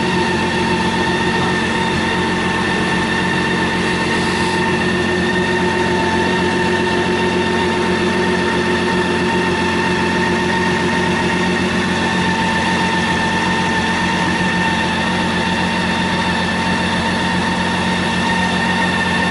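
A steady machine drone with a constant high-pitched whine over a low hum, unchanging throughout, with a brief hiss about four seconds in.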